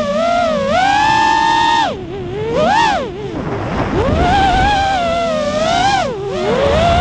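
Martian 220 FPV quadcopter's brushless motors and propellers whining as heard from the drone itself, the pitch rising and falling with the throttle. The pitch dips sharply about two seconds in, swoops up and back down a second later, and dips again near the end.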